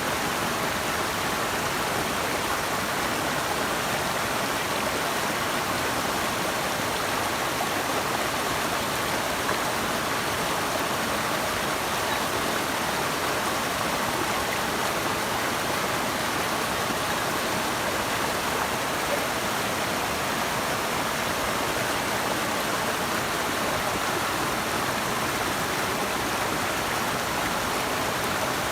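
Steady rushing of flowing water from a stream or small waterfall, an even, unbroken wash of sound.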